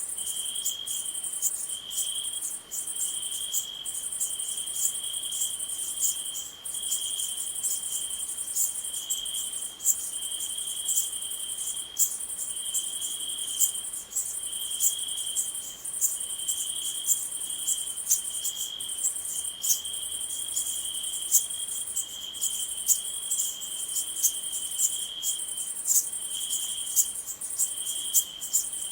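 A cricket chirping in a steady run of short, high trills, about one a second, over a higher insect hiss with scattered ticks, like a night-time field ambience.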